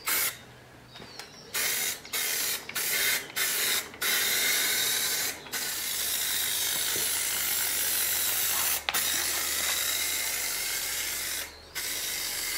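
Aerosol rattle-can paint, fired through a clip-on pistol-grip trigger handle, hissing in short spurts about twice a second at first. It then runs in long steady passes of several seconds with brief breaks between them.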